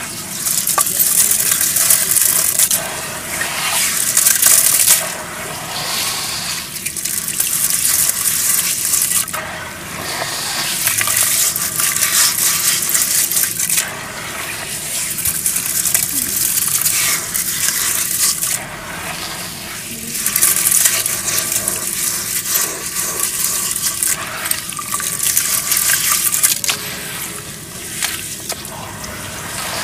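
Hands squeezing and kneading a heap of gritty red dirt under muddy water in a tub, giving loud wet squelching and sloshing. The sound swells and eases every few seconds as the hands press down and let go.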